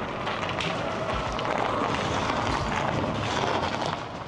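Steady road and running noise of a moving car, an even rushing hiss with a few faint clicks, swelling slightly in the middle.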